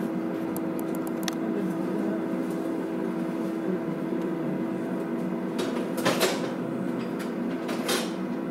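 Steady appliance hum with a constant low tone, over which kitchen utensils and dishes clatter a few times as they are handled on the counter, loudest about six seconds in.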